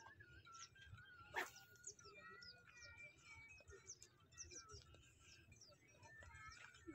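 Faint birdsong: several birds chirping and twittering in short, quick calls, with a single sharp click about one and a half seconds in.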